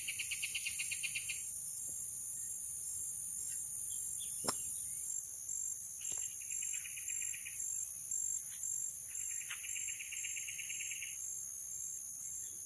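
Insects shrilling steadily at a high pitch, with a pulsed trill of a second or so that comes back every few seconds. A single sharp click about halfway through.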